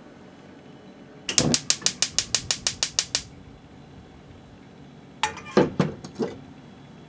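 Gas stove burner's igniter clicking rapidly, about seven clicks a second for two seconds, as the burner lights. About two seconds later come a few knocks of a small metal saucepan being set down on the burner's grate.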